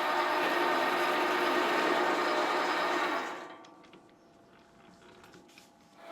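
Sieg SC4 bench lathe running with a steady whine while a boring bar cuts the inside of an aluminium piston. The sound falls away a little after three seconds in, leaving a few faint clicks, and comes back up near the end.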